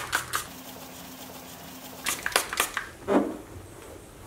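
Gloved hands handling a shop towel and rubbing it over a car door panel: scattered sharp clicks and rustles, with a cluster of clicks about two seconds in and a louder rub a little after three seconds.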